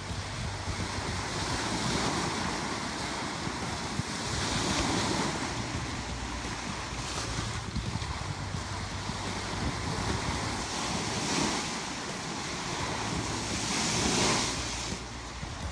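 Bow wave of a schooner under sail rushing and splashing along the hull, with wind buffeting the microphone. The rush of water swells louder a few times as the bow drives through the seas.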